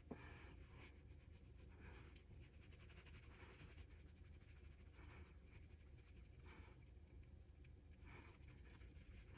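Faint soft swishes of a makeup brush stroked across the cheek, coming every second or so over near-silent room tone.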